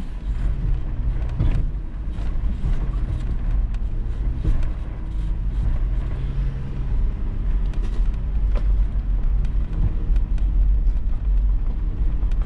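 Toyota 4Runner crawling slowly over a rutted, rocky dirt trail: a steady low engine rumble, with scattered knocks and clicks as it works over the rough ground.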